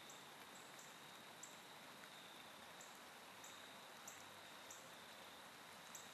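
Near silence: room tone, a faint steady hiss with a few soft ticks scattered through it.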